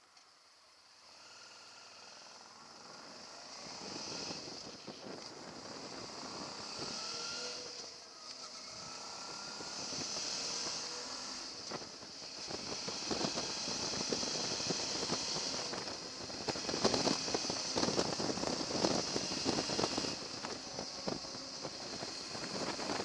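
Suzuki V-Strom motorcycle on the move: engine running under wind hiss, with a dense crackling. It grows louder over the first dozen seconds.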